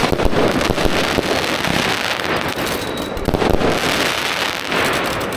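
A consumer fireworks cake (a full box of fireworks) firing, a dense, continuous run of bangs and crackles.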